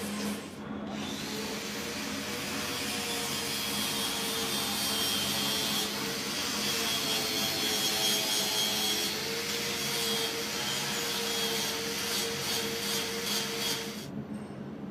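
A power tool runs with a steady whine that wavers a little in pitch as it works. It starts about a second in and cuts off near the end.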